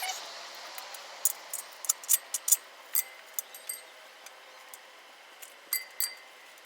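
Irregular light metallic clicks and taps, a brief ringing tone on a few of them, from a valve-stem fishing tool being worked through a motorcycle rim's valve hole to pull the inner tube's valve stem through. The clicks come in a quick cluster in the first few seconds and again near the end.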